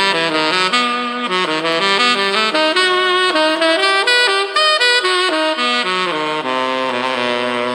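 Instrumental music: a melody of quickly changing pitched notes over held lower notes.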